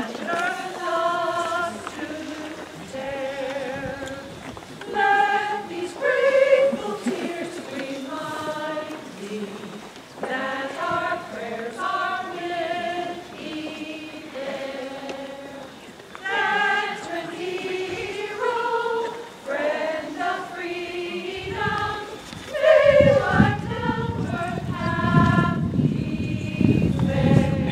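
A group of voices singing a slow song together. Past the two-thirds mark a low rumbling noise comes in under the singing and is louder than it.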